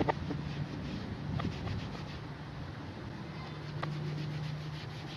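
A cloth rubbed back and forth over a plastic engine cover, with a few faint clicks, over a steady low hum.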